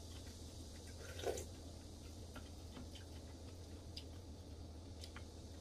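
Quiet eating of soup: faint clicks of a wooden spoon against a ceramic bowl and one louder wet slurp about a second in, over a steady low hum.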